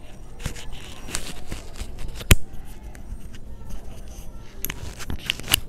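Scattered clicks and rustles, with one sharp click a little over two seconds in and several more clicks near the end.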